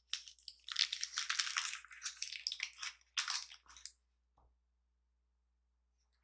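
Biting into a flaky durian pastry: a dense, crackling crunch of crisp pastry crust lasting about three seconds, then stopping.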